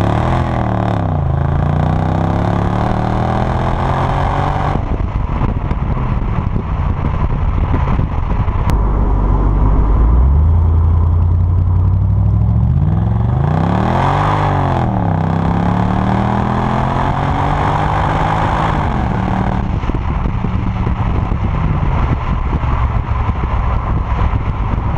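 Exhaust of a Mercedes SL55 AMG's supercharged 5.4-litre V8, resonator deleted, heard right at the tailpipe while driving. The revs climb and then fall away just after the start and again about 14 seconds in, with steadier cruising in between and a quieter stretch near the end.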